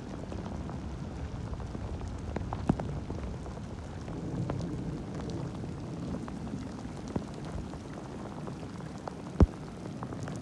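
Heavy rain falling steadily on a dirt track and leaf litter, with scattered sharp taps of drops landing close by, two of them louder, about two and a half seconds in and near the end.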